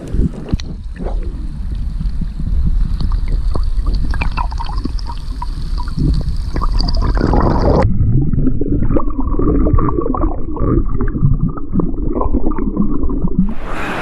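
Stream water splashing and gurgling around a camera held at the surface. About eight seconds in the sound turns muffled and bubbly as the camera goes under the water.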